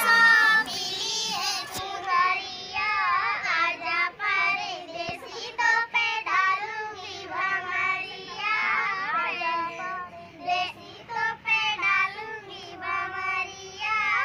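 A young girl singing a song in phrases of held, wavering notes.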